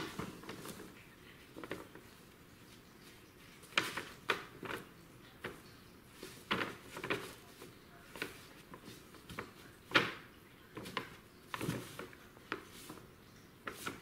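Brown paper cat tunnel rustling and crinkling, with irregular soft knocks, as a cat moves about inside it; the loudest crackle comes about ten seconds in.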